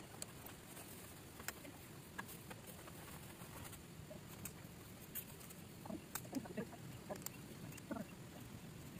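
Faint scattered clicks, knocks and rustles as a vehicle side awning is unrolled and its support poles are set up.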